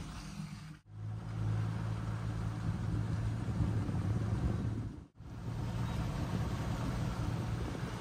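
Vehicle engine running steadily at low speed, heard from inside the cabin while driving along a muddy dirt track. The sound breaks off sharply twice, about a second in and about five seconds in.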